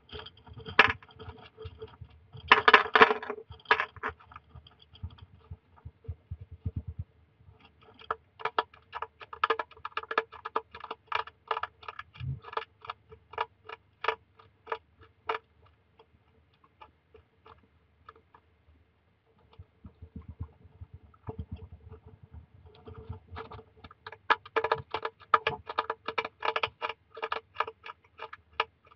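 Hedgehog crunching dry biscuit food from a bowl, with rapid sharp clicks of chewing in bouts. The chewing is loudest about three seconds in, thins out around the middle, and picks up again near the end.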